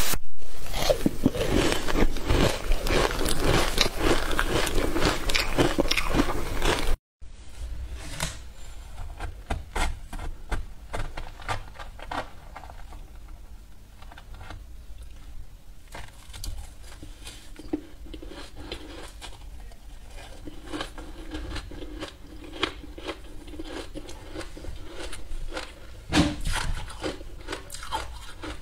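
Close-miked crunching and chewing of green-powder-coated ice, loud for the first several seconds. After a sudden cut, quieter scattered clicks and scrapes of a metal spoon digging into powder-covered ice chunks, with more chewing.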